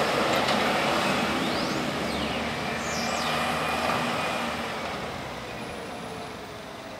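A motor vehicle driving past, its engine and tyre noise fading away over the last few seconds.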